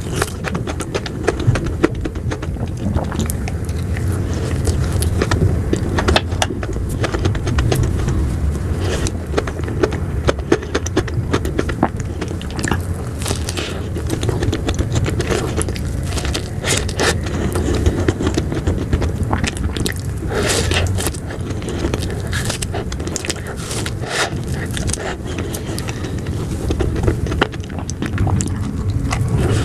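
Close-miked eating of ice cream: biting, scraping and wet mouth sounds with many short sharp clicks and crackles, over a steady low rumble.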